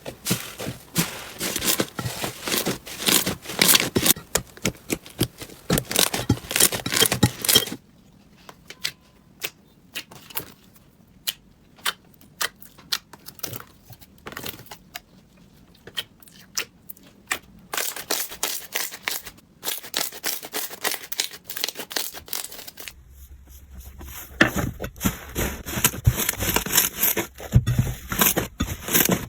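Slime being squeezed and worked by hand, a dense run of crackles and pops that thins out to scattered quiet clicks for a stretch in the middle before turning dense again.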